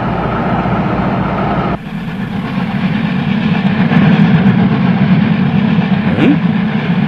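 Train running on rails, a steady rumble that drops sharply about two seconds in and then builds up again.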